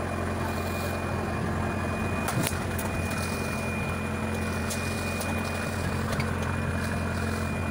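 Fishing boat's engine running with a steady drone, with a few light knocks on deck.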